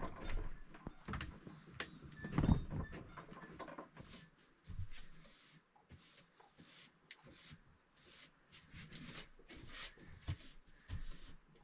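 Light knocks and thumps in the first few seconds, then many short scratchy strokes of a hand brush sweeping the floor into a dustpan.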